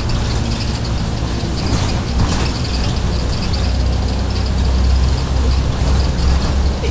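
Scania OmniCity single-deck bus under way, heard from inside the saloon: the rear-mounted diesel engine's low drone, growing stronger a little past halfway, with road noise from the wet road.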